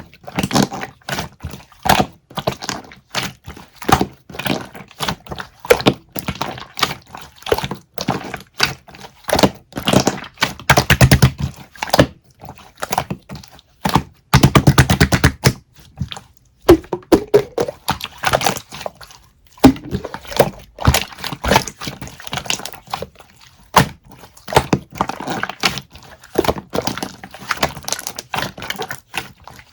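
Close-miked series of taps, clicks and knocks, with two stretches of fast rattling strokes about ten and fifteen seconds in.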